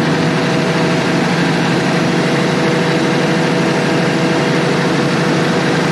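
Large Cummins diesel generator set running steadily at a constant speed, a loud even drone with a steady hum.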